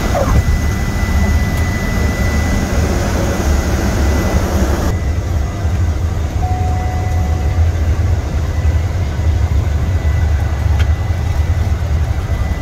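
Steady engine and cabin noise of a small commuter plane heard from inside the cabin during its landing: a deep continuous rumble under a loud rushing hiss. About five seconds in, the upper hiss drops away abruptly while the rumble goes on.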